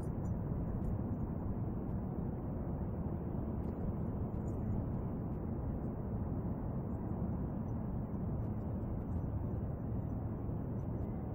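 Steady low rumbling background noise picked up by a compact camera's built-in microphone outdoors, with a few faint clicks.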